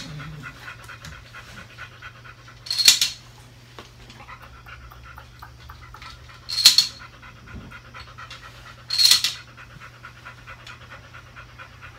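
A dog panting quietly and steadily, while plastic Connect 4 discs clatter down the grid three times, a few seconds apart.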